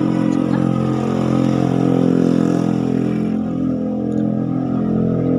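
An engine running steadily at idle, a hum of even pitch; the hiss above it eases about three seconds in.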